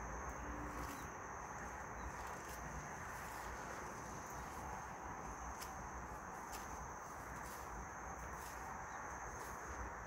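An insect chirring in a steady high tone against quiet outdoor background noise, with scattered sharp clicks every second or so.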